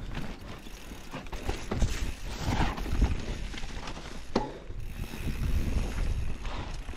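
Enduro mountain bike rolling downhill on a dirt trail strewn with dry leaves and stones: tyres crunching over the ground, with the chain and frame rattling and irregular knocks over bumps, over a low rumble.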